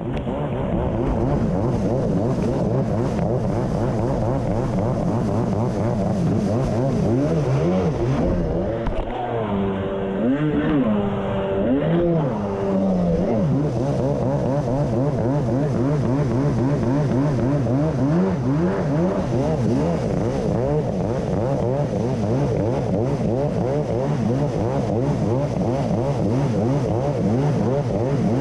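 1990 Kawasaki JS550SX stand-up jet ski's two-stroke twin running hard through a Coffman's half-pipe exhaust, its pitch wavering constantly. In the middle the throttle is eased off and reopened a few times, the revs dipping and climbing, before it settles back to a steady high rev.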